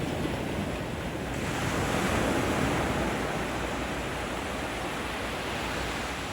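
Ocean waves washing onto the shore, with a wave surging up about a second and a half in and then a steady wash of surf. Wind buffets the microphone underneath.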